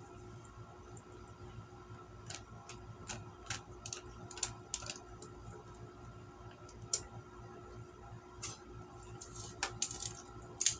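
Wooden chopsticks clicking and tapping against a clear plastic takeout container, with light plastic crackles, in sparse, irregular ticks over a faint steady hum.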